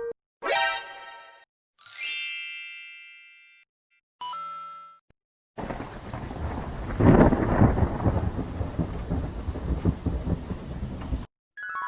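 Short ringing chime-like tones, three in the first five seconds, then a thunderstorm sound effect: steady rain with a rumble of thunder swelling about seven seconds in. It cuts off abruptly near the end, and a falling tone begins.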